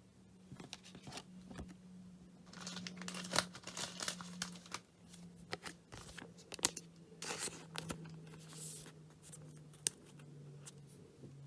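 Football trading cards being handled and shuffled through by hand: a run of sharp snaps and papery swishes as the cards slide against each other, busiest in the middle. A faint steady hum runs underneath.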